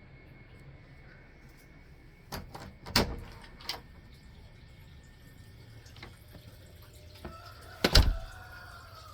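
A handful of knocks and thumps, two of them loud, about three seconds and eight seconds in, with smaller clicks between.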